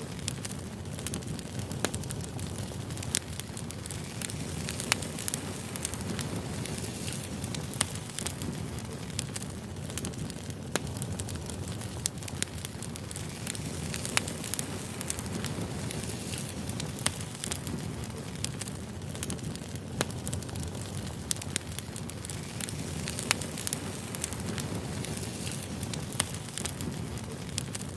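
Firewood burning, a steady hiss of flame with frequent sharp, irregular crackles and pops from the logs.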